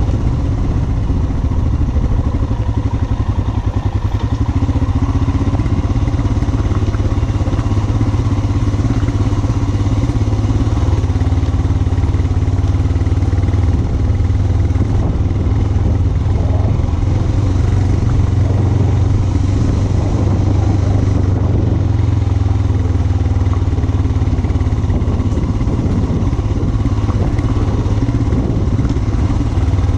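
Motorcycle engine running loud and close at steady revs.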